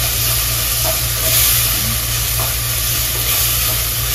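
Shallots, ginger and garlic sizzling in coconut oil in a clay pot, stirred with a wooden spatula that scrapes the pot lightly now and then; the shallots have softened to about three-quarters done.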